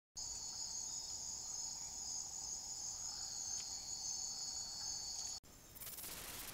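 Steady, high-pitched chorus of night insects calling in the forest. A little over five seconds in it cuts off abruptly and gives way to a plain steady hiss.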